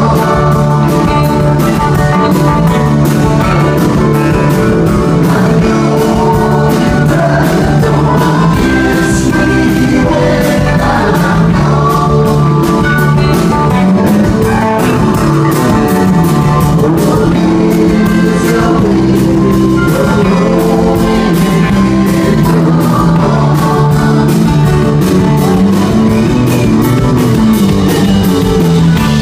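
Rock band playing live: electric guitars and a drum kit keeping a steady beat, loud and without a break.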